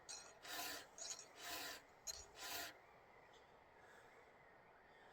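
Round chainsaw file rasping across the cutters of a 3/8 saw chain in hand strokes, about three strokes, each starting with a small click, then stopping about three seconds in.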